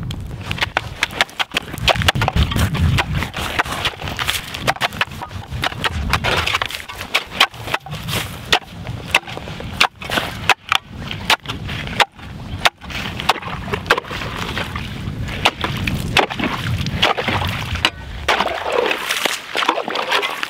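A sharpened steel shovel blade on a long wooden handle, used as an ice chisel, striking down into lake ice again and again, a few irregular hard chops a second, cutting a fishing hole through ice about six inches thick.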